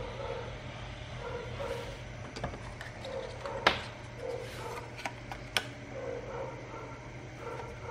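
Two printed circuit boards handled in the hands, giving a few sharp clicks and taps as they knock together, the loudest about halfway through. Under it runs a steady low hum, with a faint pitched sound that comes back about every second and a half.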